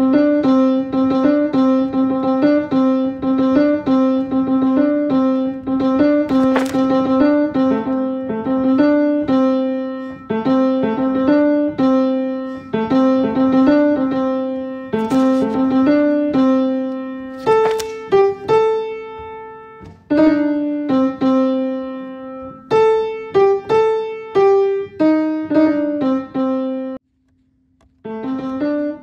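Piano plucking out the tenor line of a choral piece one note at a time, in quick repeated notes that keep returning to one low pitch near middle C, with some higher steps in between. It stops briefly near the end, then starts again.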